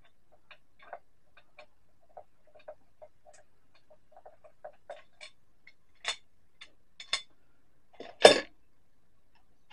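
Light, irregular metallic clicks and ticks from a hand tool on the crankshaft as a Yamaha DT250 two-stroke engine is turned over by hand to bring the piston up. A single louder clank comes about eight seconds in.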